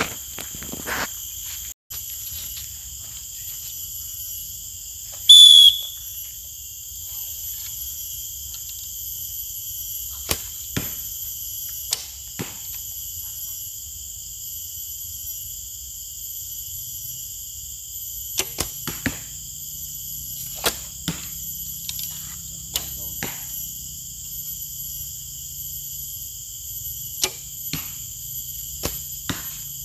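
Horsebows being shot at 20 metres: each string release is followed a fraction of a second later by the arrow striking the target, in several pairs of sharp clicks from about ten seconds in. A steady insect chorus runs underneath, and there is one brief loud sound about five seconds in.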